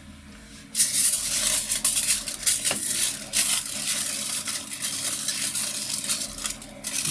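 Aluminium foil crinkling and crumpling as it is wrapped around skewered grilled fish to rest it partway through grilling, starting suddenly about a second in and going on as a dense crackle.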